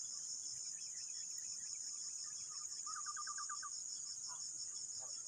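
Steady high-pitched insect chorus, pulsing evenly, with a brief rapid trill of about eight quick notes about three seconds in.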